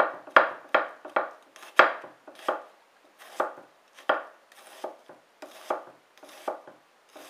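Santoku kitchen knife slicing a small onion on a wooden cutting board: a run of about a dozen crisp cuts, each ending in a tap on the board, quicker in the first couple of seconds and more spaced after.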